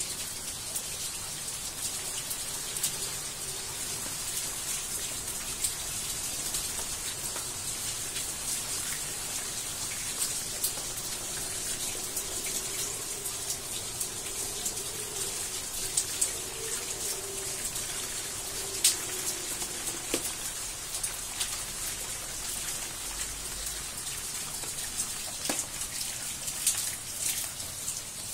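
Heavy rain pouring down, a steady hiss with many close drops ticking on surfaces. Under it, a faint wavering hum holds through the first two-thirds and fades out about twenty seconds in.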